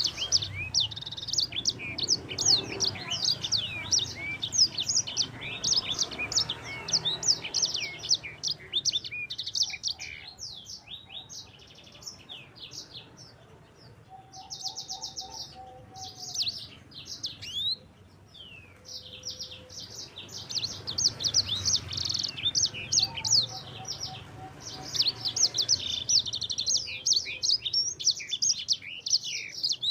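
Sanger songbird singing vigorously in long rolling runs of fast, high twittering notes, thinning to sparser notes with a short buzzy trill in the middle before the full rapid song resumes. A few lower whistled notes sound under it.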